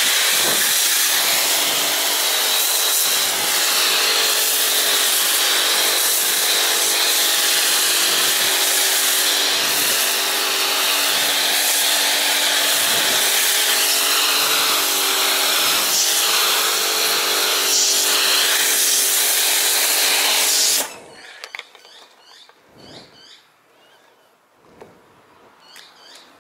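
Pressure washer running with a steady motor hum while an MJJC Foam Cannon Pro V2 on a trigger gun sprays snow foam with a loud, steady hiss. The spray and the hum cut off suddenly about 21 seconds in, leaving quiet with a few faint high chirps.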